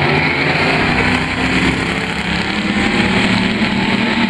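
A pack of pure stock dirt-track race cars racing past, their engines running together in a steady, loud drone.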